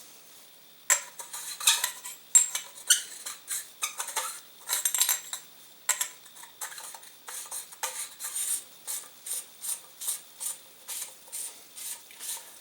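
Metal suppressor parts clicking and scraping as they are handled and worked. The handling starts about a second in, and in the second half it settles into a steady run of light clicks, about two or three a second.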